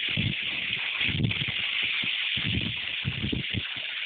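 Very heavy rain pouring down, a steady hiss, with irregular low rumbles underneath.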